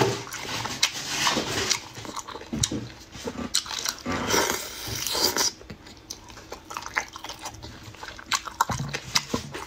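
Close-miked eating sounds: lip smacks, bites and wet chewing, with a longer slurping suck about four seconds in as a piece of food goes into the mouth.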